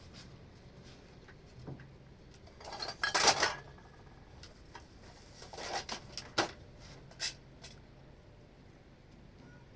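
Irregular clatter and knocks of things being handled, loudest about three seconds in, then a few sharper knocks around six to seven seconds.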